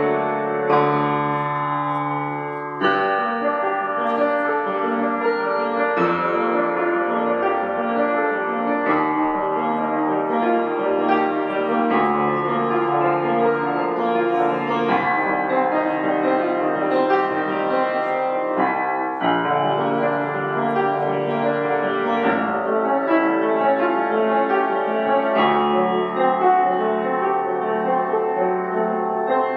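Solo piano playing a lively, flowing piece in a steady stream of notes.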